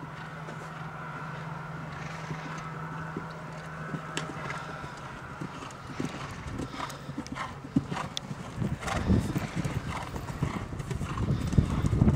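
Horse's hooves cantering on a sand arena, irregular dull hoofbeats that grow louder and more frequent in the second half. A steady low hum sits under the first half.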